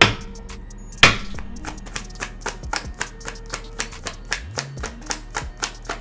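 A tarot deck being shuffled by hand, the cards giving a quick, uneven run of soft clicks and taps, with two sharper slaps at the start and about a second in.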